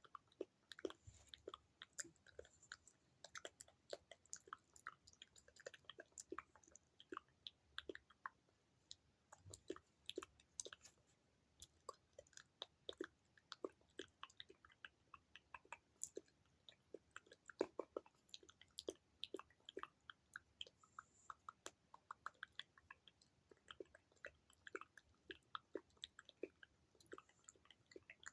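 Close-miked ASMR mouth sounds: quiet, wet lip smacks and tongue clicks, several a second in an irregular run.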